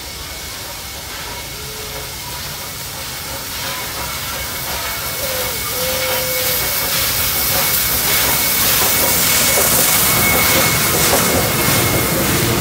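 Steam locomotive approaching and passing with its train of heritage carriages: hissing steam and regular exhaust chuffs, growing louder over the first two thirds. A thin, steady high tone runs under it and stops near the end.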